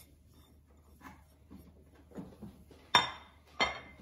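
Two sharp clinks of white ceramic plates being set down on a granite countertop, about half a second apart near the end, after a few faint soft taps and scrapes.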